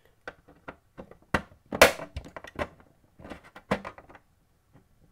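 Plastic case of a TiVo Edge being pried open with a plastic spudger: a series of irregular clicks, taps and scrapes as the clips give, with the loudest sharp snap just under two seconds in.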